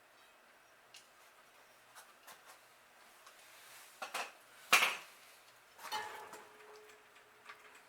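Scattered light metallic clinks and taps from metal parts being handled. The loudest clank comes nearly five seconds in, and a knock about a second later leaves a short ringing note.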